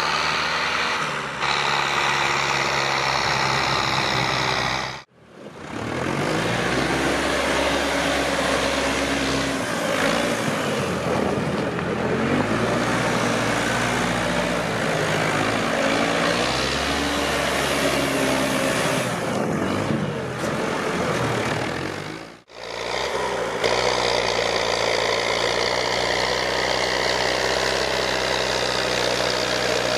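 Ursus 5314 tractor's turbocharged diesel engine running under load as its front loader pushes snow, the engine speed rising and falling through the middle stretch. The sound cuts out briefly twice, about five seconds in and again after about twenty-two seconds.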